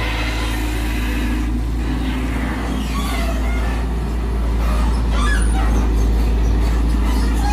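Volvo EC210DL long-reach excavator's diesel engine running under load with a steady low rumble as the boom lifts and the machine swings.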